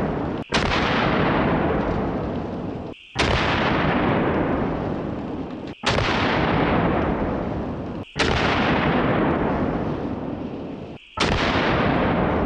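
Big-bore elephant rifle firing five heavy shots about every two and a half seconds. Each shot has a long rolling echo that breaks off sharply just before the next one.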